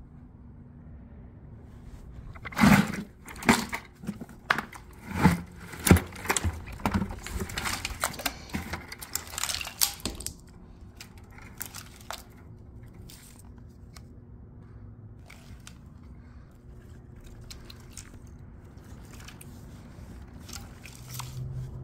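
Hair clippers and a tangle of their power cords tipped out of a plastic bucket onto concrete. A run of clattering knocks and scrapes starts a few seconds in and lasts several seconds, followed by quieter rustling and scraping as hands pick through the pile of cords.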